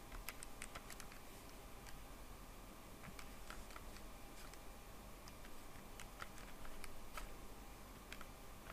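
Faint, light clicks of keys being pressed, about twenty irregular taps in quick runs with short pauses, as a calculation is keyed in. Faint steady room hiss underneath.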